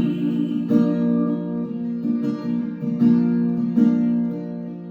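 Acoustic guitar strumming chords, with the chords re-struck every second or so as an instrumental interlude between sung lines.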